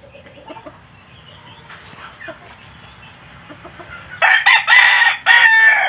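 Rooster crowing once, loud, starting about four seconds in and lasting about a second and a half.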